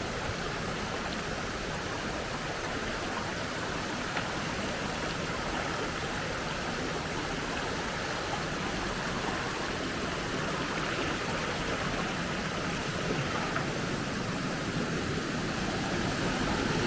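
Steady rushing of a flowing stream, with a faint tick about four seconds in.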